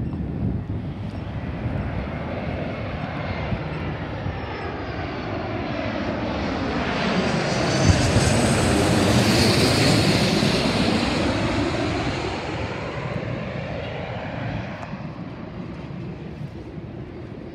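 Boeing 717 jet airliner on final approach passing low overhead, its two rear-mounted Rolls-Royce BR715 turbofans whining and rushing. The sound swells to its loudest about eight to ten seconds in, the pitch sweeping as the plane goes over, then fades as it heads on toward the runway.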